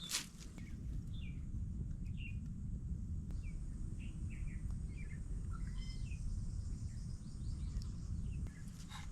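A bird calling in a string of short, falling chirps for several seconds over a steady low rumble, with a sharp click at the start and another near the end.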